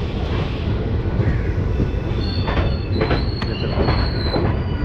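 Passenger train rolling into a station, heard from an open coach doorway: a steady low rumble with a few clacks over the rail joints. From about two seconds in, a high steady squeal of the braking wheels joins it as the train slows to stop.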